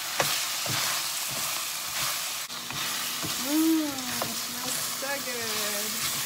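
Beef and chopped onion sizzling in a hot stainless-steel wok while a metal spatula stirs and scrapes the pan, with several short scrapes or knocks. A short wavering pitched sound comes in about halfway through.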